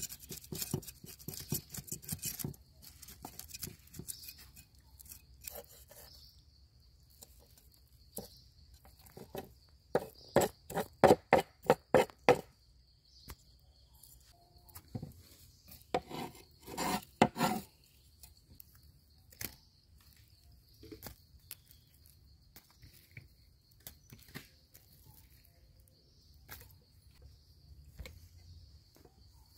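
A cleaver scraping scales off fresh fish on a wooden cutting board in rapid strokes, then a run of about eight sharp chops of the cleaver and a few more knocks a few seconds later. A steady high insect drone runs underneath.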